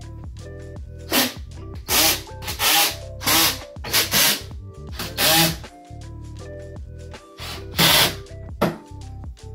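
Cordless drill driving screws in a series of short bursts, over background music.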